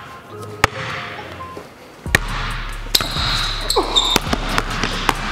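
Basketball bouncing on a hardwood gym floor: a handful of sharp, separate bounces about a second apart. A steady low hum comes in about two seconds in.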